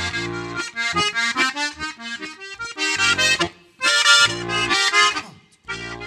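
Instrumental passage of Austrian folk music: an accordion plays a lively melody in short phrases over bass notes, with a brief break near the end.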